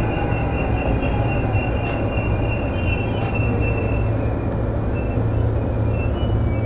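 Yamanote Line E231-500 series electric commuter train running along the track, heard from inside the front car: a steady low rumble and hum, with thin high tones that fade out about four seconds in.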